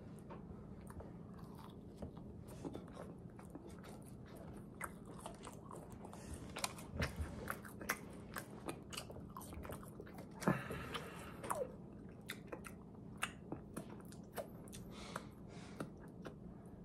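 Close-up chewing and crunching of a crispy fried chicken sandwich and French fries, a run of irregular sharp crunches and mouth clicks, with one louder crackle about ten and a half seconds in.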